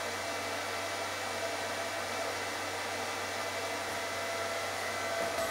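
Lathe driven by its new 2 hp Marelli AC motor through an inverter drive, running steadily: an even whirring hum with several faint steady whining tones.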